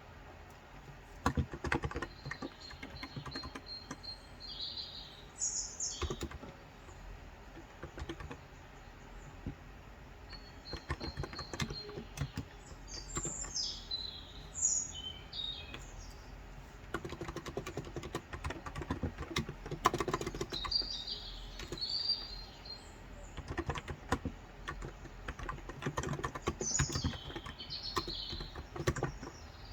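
Bursts of typing on a Cox Endeavor electro-capacitive tenkeyless keyboard with 35 g switches: quick runs of soft key clicks with short pauses between them. Birds chirp in short high phrases behind the keys several times.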